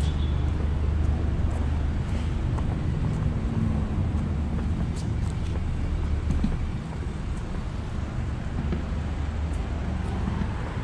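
City street traffic: cars running past with a steady low rumble.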